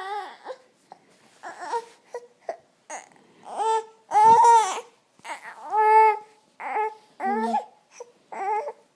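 A baby fussing: a string of short, high whining cries, the longest and loudest about halfway through, stopping just before the end.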